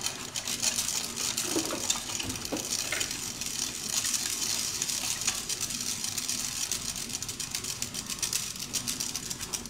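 A plastic petri dish being slid in circles across a hard bench top, making a steady scraping rustle full of fast fine scratches. The dish is swirled to spread the liquid bacterial culture over the agar. The sound stops abruptly near the end.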